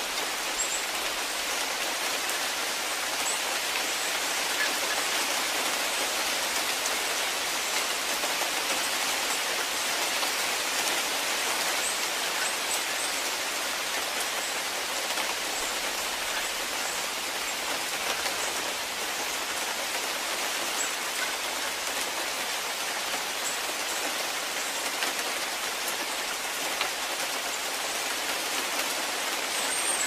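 Steady rain: an even hiss of many falling drops.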